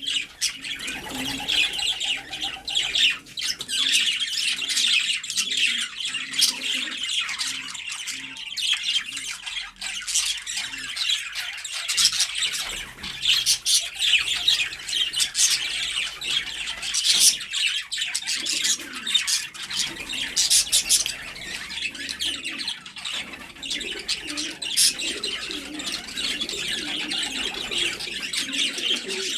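Many birds chirping and squawking continuously: a dense chatter of sharp, high calls, with some lower calls now and then.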